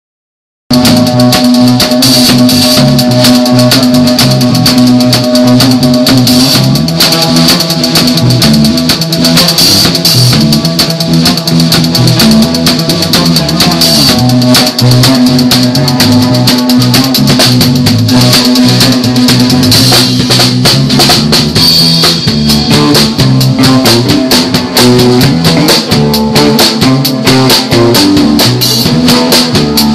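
Rock band playing live at full volume, recorded close to the drum kit: kick drum and cymbals keep a fast steady beat under guitar and low sustained bass notes. The music cuts in abruptly less than a second in.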